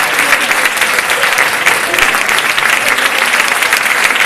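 Audience applauding: a dense, steady clatter of many hands clapping at once.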